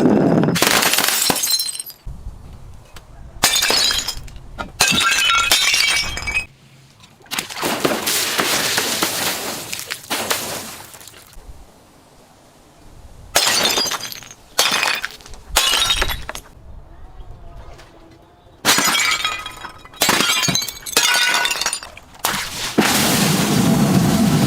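Glass bottles shattering again and again, about ten separate breaks with short pauses between, each crash followed by tinkling, ringing shards.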